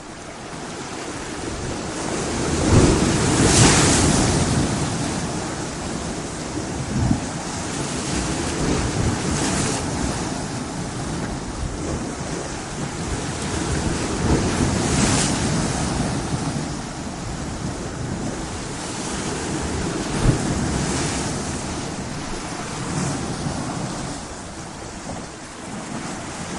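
Heavy rain and wind in a steady rush, with deep rumbles that swell and fade several times, a few seconds apart.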